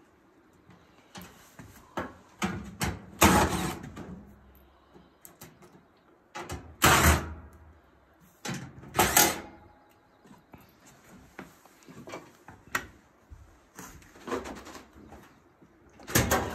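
Short knocks, scrapes and rattles of a GE dryer's sheet-metal front panel as its top screws come out and it is worked loose to lift off. The loudest knocks come about three, seven and nine seconds in.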